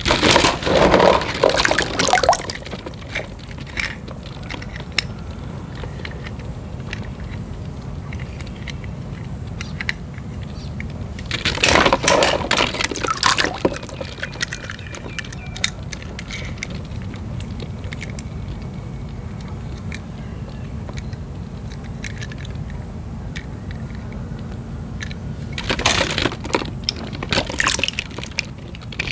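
Water splashing and dripping in a tub as hands reach in among floating plastic balls and lift out a wet toy truck, in three bursts: at the start, around the middle and near the end. A steady low hum runs underneath.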